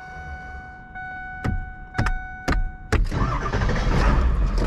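A steady high tone and three sharp clicks, then about three seconds in a diesel pickup truck's engine cranks, catches and keeps running, heard from inside the cab. The truck is started once the glow plugs' wait-to-start period is over.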